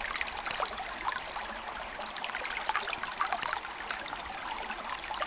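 Creek water flowing, with splashing as a half-inch hydraulic ram pump's brass waste valve spurts water out and shuts again, the pump starting to cycle on its own.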